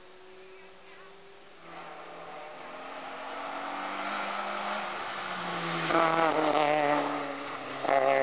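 A race car's engine approaching under hard acceleration up a hill course, the revs and volume climbing, loudest in the last couple of seconds as it passes close, with a brief dip in the engine note just before the end.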